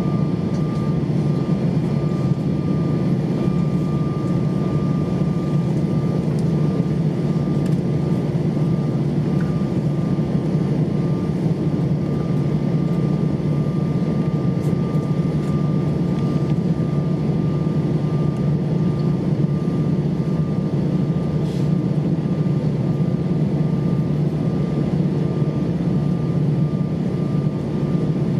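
Steady cabin noise inside an Airbus A320-232 on the ground, its IAE V2500 engines at idle, with a thin steady whine running through the low hum.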